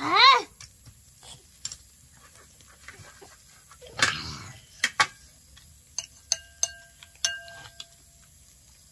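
A short, high-pitched call rising and falling in pitch at the very start, the loudest sound, then a rustle about four seconds in. Several light metallic clinks follow, each ringing briefly, as spoons tap stainless steel plates and a tray during a meal.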